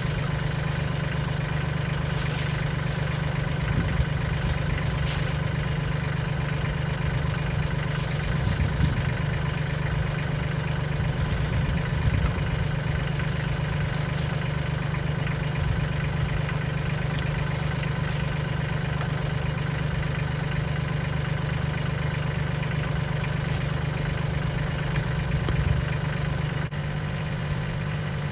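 Mahindra 1626 compact tractor's three-cylinder diesel engine idling steadily, with scattered rustles and knocks of branches being thrown onto its grapple.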